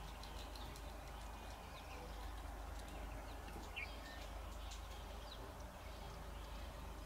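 Outdoor rural ambience: scattered short bird chirps over a steady low hum, with one clearer chirp just before the middle.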